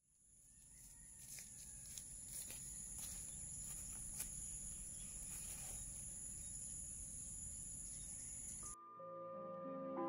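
Faint outdoor insect shrilling, two steady high-pitched tones, fading in from silence with a few soft clicks. Near the end it cuts off, and gentle marimba-like mallet notes begin and grow louder.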